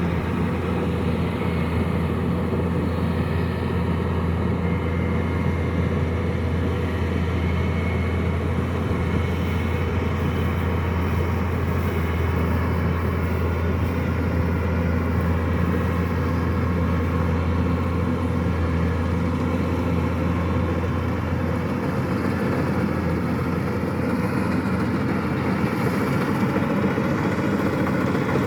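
Kubota DC-105X combine harvester running steadily, a continuous low engine hum with machinery noise over it.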